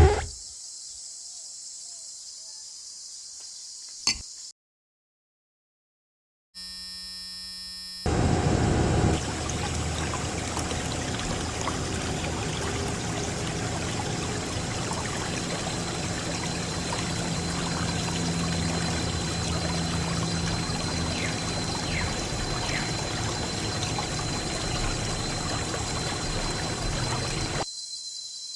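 Water running and splashing steadily, as when dirty toy vehicles are washed under a tap or hose. It starts about a third of the way in and stops suddenly near the end.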